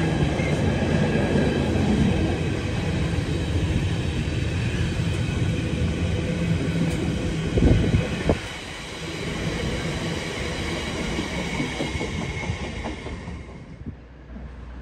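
Container freight train's loaded flat wagons rolling past at speed: a steady rumble of wheels on rail with faint high-pitched wheel squeal. Two loud clanks come about eight seconds in, then the sound drops and fades near the end as the last wagons go by.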